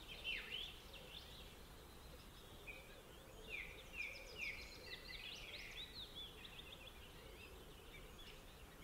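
Faint birdsong: several birds chirping, with many short whistled notes sweeping up and down, over a faint steady hiss.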